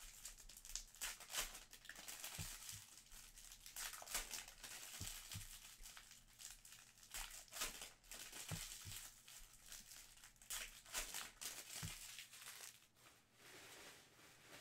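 Plastic wrapping crinkling and tearing as sealed trading-card boxes and packs are opened by hand, in quick irregular rustles. It goes quieter near the end.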